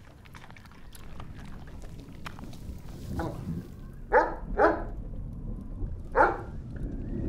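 Large dog barking four times: a softer bark about three seconds in, two loud barks close together about four seconds in, and another loud one about six seconds in.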